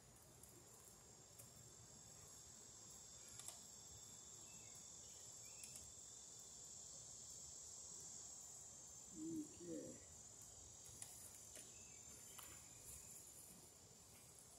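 Faint, steady, high-pitched insect chorus with a few soft clicks. A brief low two-part sound about nine seconds in is the loudest thing.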